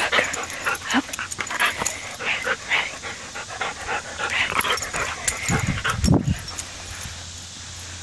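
Husky–border collie mix dog making a quick run of short, excited play noises close to the microphone, with a few low thumps about five and a half seconds in; it goes quieter about a second later as the dog runs off.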